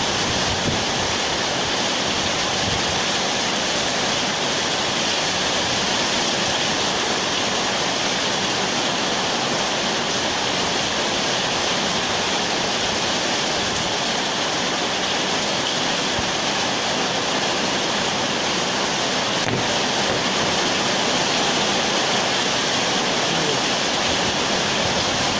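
Steady rushing noise at an even level, like heavy rain or rushing water, with no separate knocks or clatters standing out.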